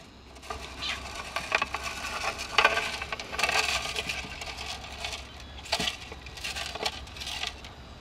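Clear plastic container and the small gravel in its bottom rattling, clicking and knocking as a hand reaches in and scoops out young frogs: a busy run of irregular clicks and scrapes.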